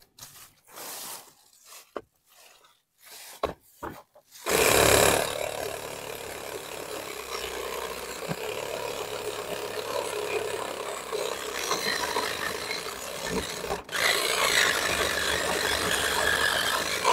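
Black and Decker 20V cordless reciprocating saw with a 5 TPI wood pruning blade cutting through a tree branch. A few faint handling knocks come first. The saw starts about four and a half seconds in and runs steadily, stops for a moment about nine seconds later, then starts again.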